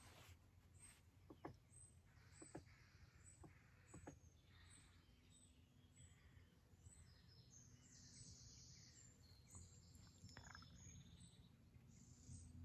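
Near silence: faint scattered birdsong, with a few soft isolated knocks in the first few seconds.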